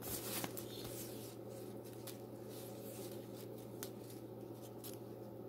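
Faint rustling and light scratching as braided fishing line is handled and drawn across a paper sheet, over a steady low hum.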